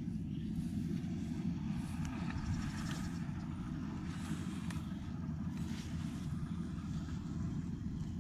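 Wind buffeting the microphone: a steady, gusty low rumble, with faint rustling and small clicks from handling a fish trap in grass.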